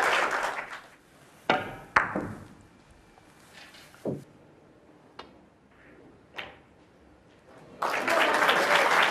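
Applause dies away, then a few sharp clicks of snooker balls: the cue tip striking the cue ball and balls knocking together, the loudest about two seconds in, with a duller knock about four seconds in. Applause starts again suddenly near the end.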